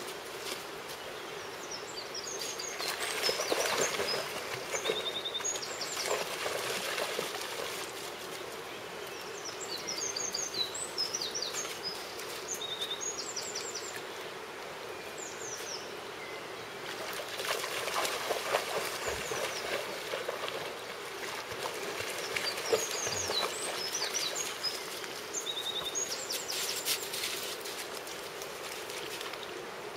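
Shallow river running steadily over stones, with small birds chirping in short high phrases in three spells.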